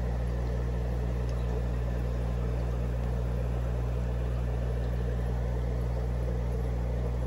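Steady low electrical hum of the air pump driving the fish room's sponge filters, with a faint even hiss above it.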